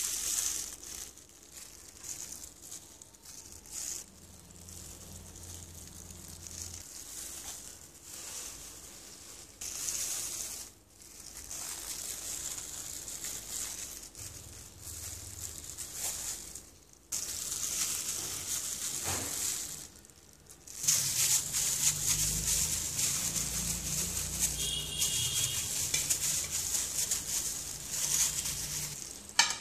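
Plastic glove crinkling and rustling as a gloved hand squeezes and works a ripe mango, with a few short breaks. A low hum joins in during the last third.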